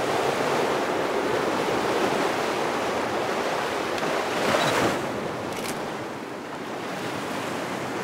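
Sea surf washing in over a rocky shore, a steady rush of water with one wave surging up loudest about halfway through.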